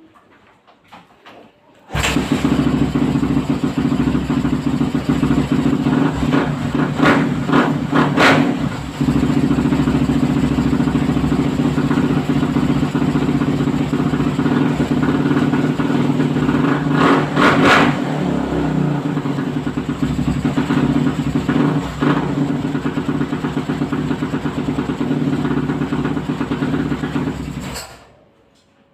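A 450cc motorcycle engine starts, runs at idle for about 26 seconds with a couple of brief rises around 8 and 17 seconds in, then is shut off abruptly. This is a start test on a bike being repaired for hard starting.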